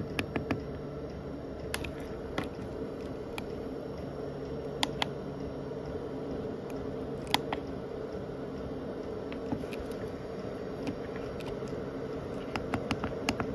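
Diesel air heater running through its start-up warm-up cycle: a steady fan hum, with scattered sharp clicks and a quick run of clicks near the end.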